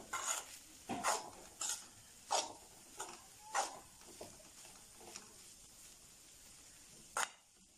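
A steel spoon stirring and scraping chicken-and-onion samosa filling around a metal pan, in short scrapes and clinks about every half second. The strokes thin out after about five seconds, and one sharper scrape comes near the end.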